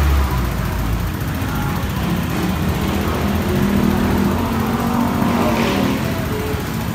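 Kawasaki Barako 175 motorcycle's single-cylinder four-stroke engine running at a steady idle.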